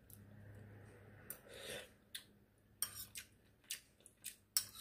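A metal spoon clinking and scraping against a bowl while scooping soup: a series of faint short clicks, with a softer scraping noise about a second and a half in.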